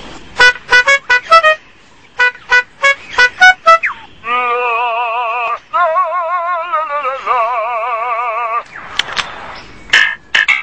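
A male superb lyrebird mimicking electronic sounds in his display song: a rapid series of short beeps, then from about four seconds in a fast-warbling, siren-like tone like a car alarm, ending with bird-like calls.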